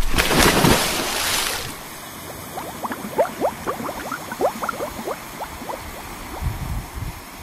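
Small waves washing on a sandy beach in shallow water: a loud rush of noise for about the first second and a half, then quieter lapping with many small bubbly gurgles.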